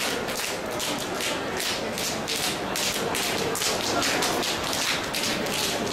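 Open hands slapping bare skin on the legs around the knees, Paida slapping therapy. Two people give several sharp slaps a second in a steady, slightly uneven run.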